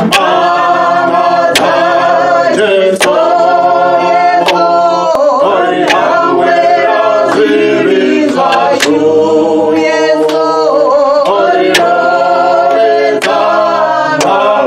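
Choir singing in held, many-voiced chords, with a sharp beat about every one and a half seconds.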